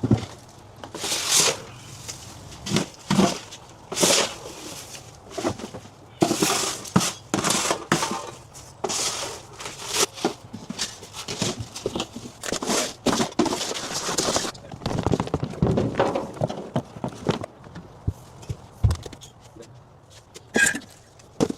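Clutter being handled and moved about: irregular knocks and thunks, footsteps, and repeated bursts of rustling and scraping.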